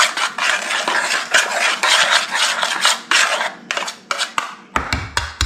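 A utensil stirring and scraping dry cornmeal breading mix around a pan, in quick repeated scratchy strokes that ease off about three and a half seconds in. A few separate clicks and a low bump follow near the end.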